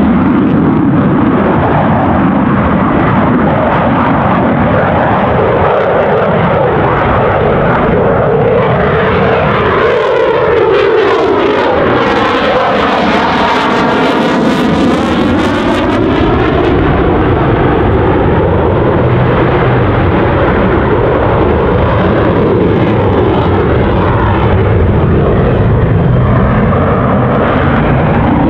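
Eurofighter Typhoon's twin EJ200 turbofans in afterburner, a loud continuous jet roar. About halfway through, a swirling, phasing sweep runs through the roar as the jet passes close by.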